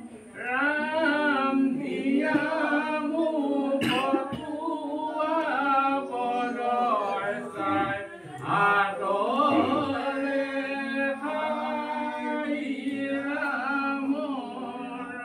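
Several voices singing an unaccompanied devotional chant together, with one voice holding a steady low note under the melody. A brief knock sounds about four seconds in.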